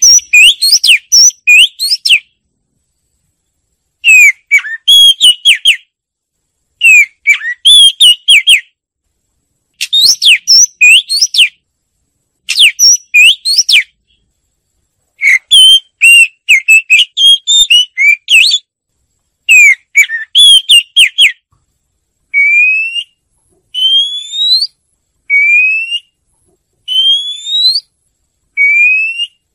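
Oriental magpie-robin singing: bursts of clear, varied whistled phrases a second or two long with short pauses between, then a run of single rising whistles about a second and a half apart near the end.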